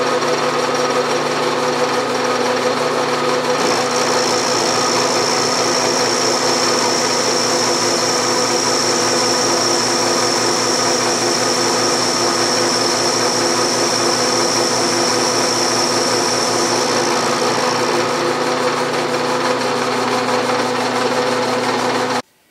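Bridgeport milling machine running, its half-inch end mill cutting a step into a metal vise jaw. A steady high whine from the cut comes in about four seconds in and fades out after about seventeen seconds, over the steady hum of the spindle. The sound cuts off abruptly just before the end.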